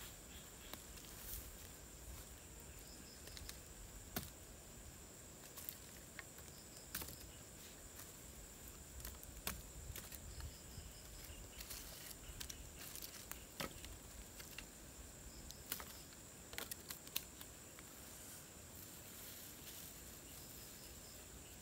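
Steady high-pitched chorus of night insects, with scattered short clicks and snaps from the dry firewood.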